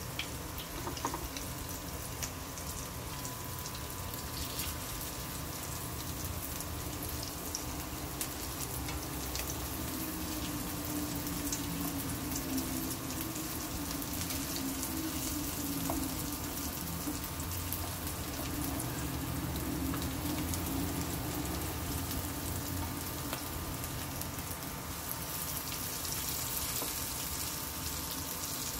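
Shami kebabs shallow-frying in hot oil in a nonstick pan: a steady sizzle full of small spitting crackles, with now and then a tap of a spatula against the pan, over a faint steady hum.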